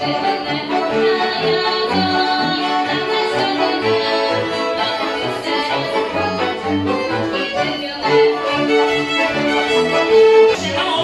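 Folk band playing live: accordion and fiddles over a bowed cello bass line that marks the beat.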